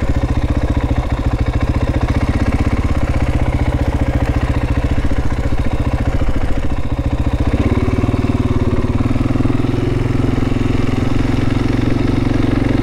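Motorcycle engine running steadily at low speed, with the engine note changing about seven and a half seconds in.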